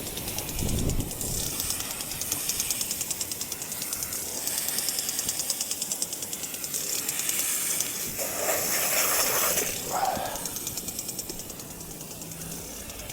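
Water hissing from an irrigation sprinkler nozzle as something is rinsed under the spray, the hiss fluttering rapidly, with a few brief splashy patches near the end.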